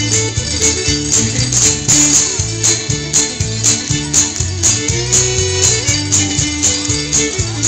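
Lively fiddle tune played with bass, guitar and a steady rattling percussion beat.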